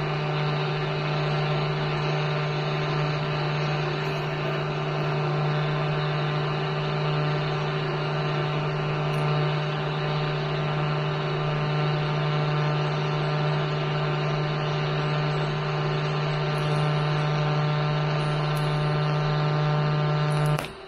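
Pulsed TIG welding arc on copper at about 115 amps: a steady buzz with a row of overtones, cut off abruptly just before the end as the arc is stopped.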